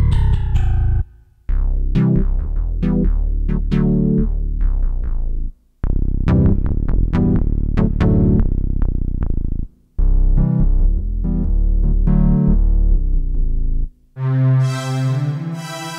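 Yamaha PSR-E323 portable keyboard playing its preset sounds: a series of short musical phrases with a low bass line, each cut off by a brief pause. About 14 seconds in it changes to a long held sound.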